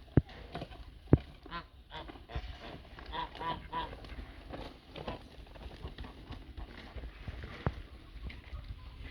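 Farmyard birds calling repeatedly in short honks, with sharp knocks near the start and once more later.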